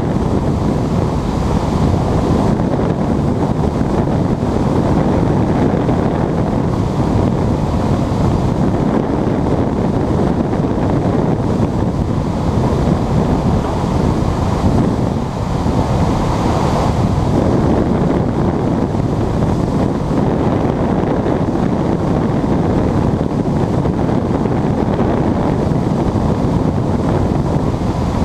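Steady, loud rush of airflow and wind noise on the microphone in a glider cockpit in flight.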